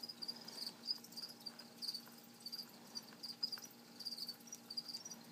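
Crickets chirping: short, high chirps repeating in quick, uneven runs, over a faint steady hum.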